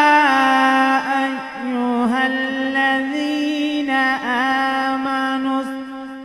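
Male qari reciting the Qur'an in melodic tajweed style, holding long ornamented notes on a mostly steady pitch with slow melodic turns. The voice is amplified through a handheld microphone.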